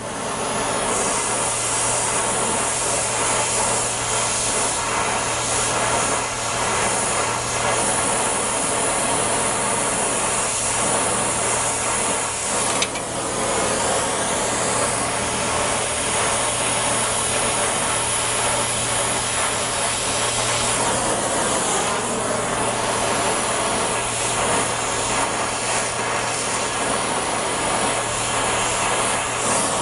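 A gas brazing torch flame running with a steady hiss while a nickel-copper brazing alloy is flowed to join threaded rod to a knife tang, with a low hum under it and a brief dip about halfway through.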